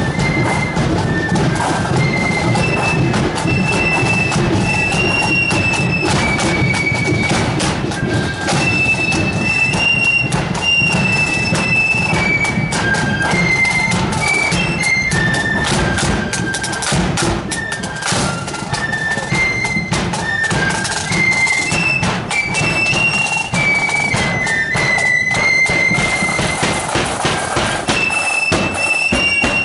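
Marching flute band playing: a high flute melody over a steady beat of snare and bass drums.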